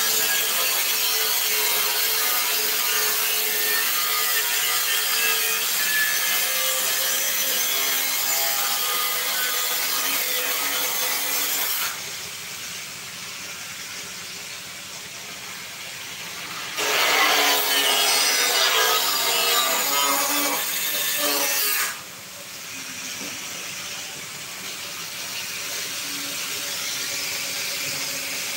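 Angle grinder cutting into the side of a steel drum, a steady high, hissing grind for about twelve seconds. It stops, then a second loud stretch of about five seconds follows, before it drops back to a lower level.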